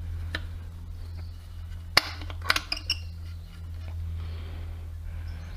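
Sharp metallic clinks of tools and small parts being handled during work on a scooter's kick-start mechanism: one about half a second in, then a loud one about two seconds in followed by a quick cluster, over a steady low hum.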